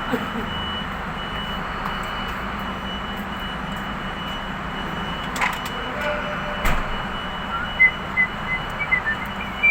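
A vehicle engine running steadily, with a constant thin high tone over it. Two sharp clicks come around the middle, and a run of short, uneven chirps follows near the end.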